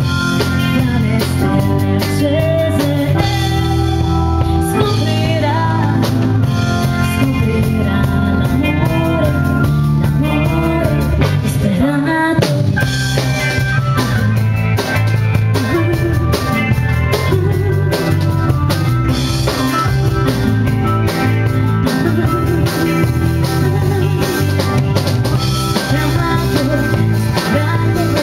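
A live band playing: a woman singing into a microphone over electric guitar and a drum kit.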